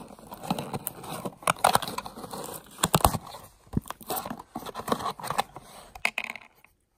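Cardboard box and paper packaging crinkling and tearing in irregular crackles, with louder clusters in the first half.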